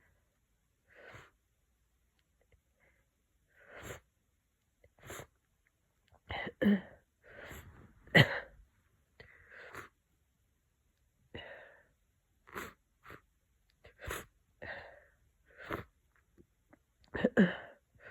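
A person with a head cold sniffing and breathing in short, separate bursts, with congested sneezes as the loudest sounds: a double burst about six and a half seconds in, another about eight seconds in, and a double burst near the end.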